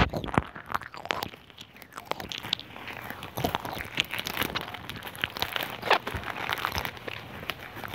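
Someone crunching and chewing Jacobina biscuits close to the microphone: a dense run of sharp crackles, with a few louder crunches along the way.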